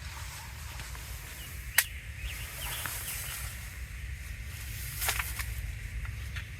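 Quiet woodland ambience with a steady low rumble and faint bird chirps, broken by a few sharp clicks. The loudest click comes a little under two seconds in, and the others come near the end.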